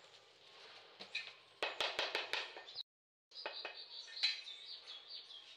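A quick run of sharp taps on ceramic wall tiles as they are knocked into place in fresh mortar, about six in under a second, starting a little over a second and a half in. The sound drops out for a moment near the middle, and birds chirp in the background.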